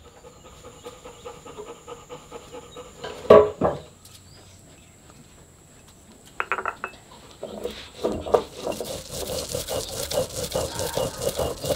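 Stone roller grinding seeds on a flat grinding stone: a rhythmic rasping scrape back and forth, starting a little past halfway. A single sharp knock comes about three seconds in.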